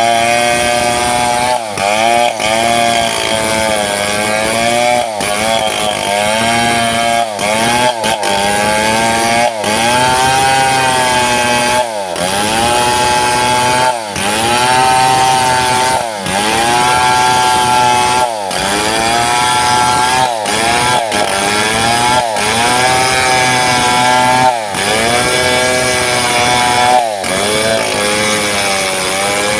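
Chainsaw running at full throttle while ripping a mahogany log lengthwise; the engine pitch sags as the chain bites into the wood and climbs back again, about every two seconds.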